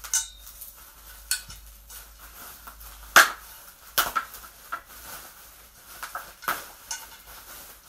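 Parts of a keyboard stand knocking and clinking as they are handled and fitted together: a string of separate sharp clanks, the loudest about three seconds in.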